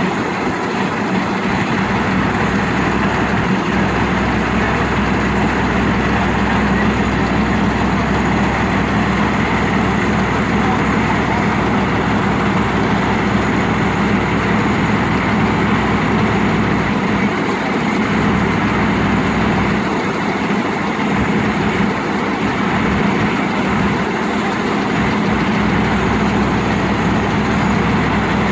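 Circular sawmill's engine and drive running steadily at idle, with no cut being made.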